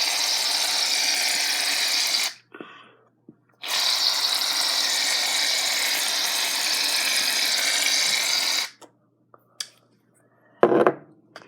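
Aerosol can of shaving cream spraying out in two long steady hisses, the second about five seconds long, as the last of a nearly empty can is dispensed. A short knock comes near the end.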